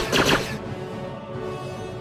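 A quick volley of blaster shots in the first half second, then sustained background music alone.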